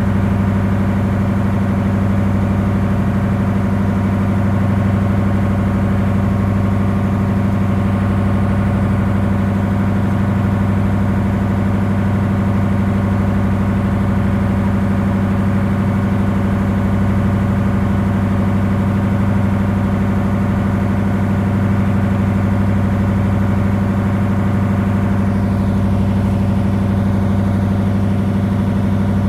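Boat engine running steadily under way, a loud, even low drone with a constant hum, over the rush of the boat's wake.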